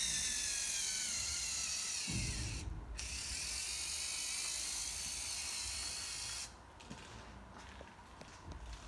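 Lego Mindstorms EV3 robot's electric motors and plastic gear trains whirring and rattling as the remote-controlled robot moves, with a whine that falls slowly in pitch at first. The motors pause briefly about three seconds in and stop abruptly about six and a half seconds in.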